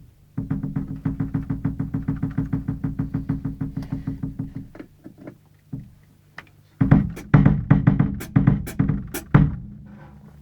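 Acoustic drum kit played for a sound check. A fast, even roll of about nine strokes a second on a low drum lasts about four seconds, then a few scattered hits. Near the end comes a louder fill with several bright crashing strikes.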